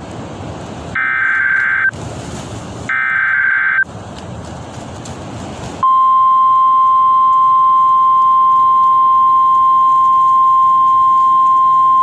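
NOAA Weather Radio alert signal: two short, shrill, screeching bursts of SAME digital header data, each about a second long, with radio static hiss between them. About six seconds in, the steady single-pitch 1050 Hz warning alarm tone starts and holds. It marks a new urgent weather warning message.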